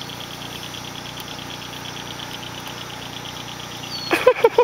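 Insects, likely crickets, chirping in a fast, even pulse over a steady low hum. Near the end a quick run of short, high-pitched calls starts.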